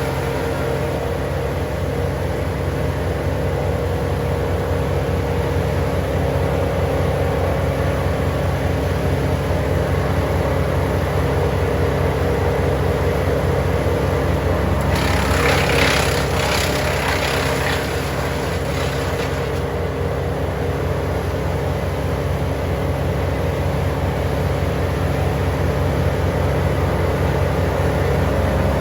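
Wood chipper running at a steady engine speed, with a harsher, noisier stretch of a few seconds about fifteen seconds in.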